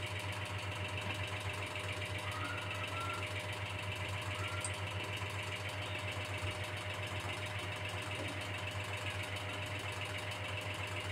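Steady low mechanical hum with a fast, even flutter, like a small motor running. Two faint short rising tones sound over it, a little over two seconds in and again about four and a half seconds in.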